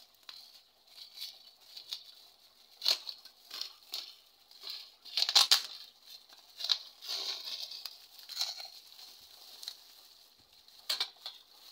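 Plastic packaging wrap crinkling and tearing as it is cut with scissors and pulled open by hand: irregular crackles and rips, loudest about halfway through and again near the end.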